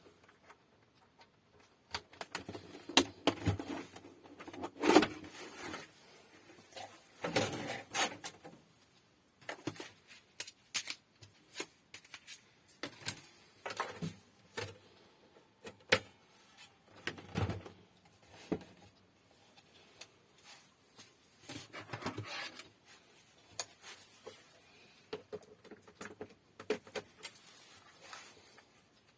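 Irregular clicks, taps and knocks of small hardware being handled, with quiet gaps between and the loudest knocks in the first third.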